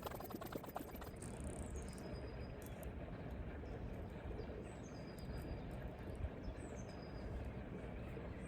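Outdoor ambience of a low steady rumble with small birds chirping, short high notes every second or so. A brief patch of rustling and clicks comes in the first second.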